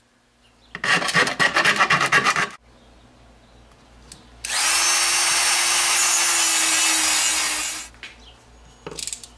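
Rapid rasping strokes on the LeafHog's plastic impeller cover for about two seconds, then a handheld rotary tool with a cut-off disc runs for about three seconds with a steady whine and hiss as it cuts a section out of the plastic housing. A brief scrape comes near the end.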